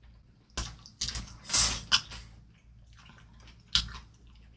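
Close-up eating sounds: a string of short, wet bites and chews, the loudest about a second and a half in and another near the end.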